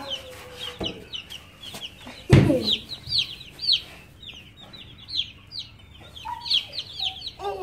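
Chickens: a run of high, repeated cheeps from chicks with a few lower clucks from a hen. A single loud, sudden call or knock cuts in a little over two seconds in.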